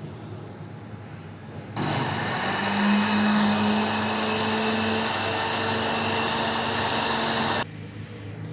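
Electric kitchen mixer switched on about two seconds in, running steadily for about six seconds with a slightly rising hum, then switched off, beating eggs and butter for a cake batter.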